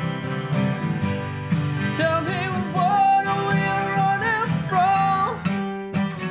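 Live acoustic duo music: steadily strummed acoustic guitar, with a bending melody line over it from about two seconds in to about five and a half seconds.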